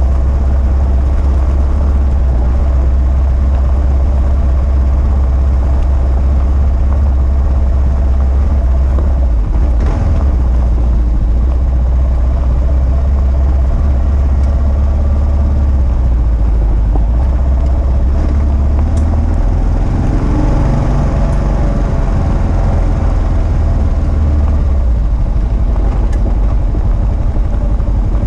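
2022 Kawasaki KLR650's single-cylinder engine running under way on a gravel road, its pitch shifting a few times as the throttle changes.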